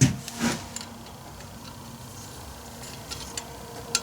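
A few light knocks and clicks of small parts being handled on a workbench: one sharp knock at the start, another about half a second later, then a couple of light ticks near the end, over a faint steady hum.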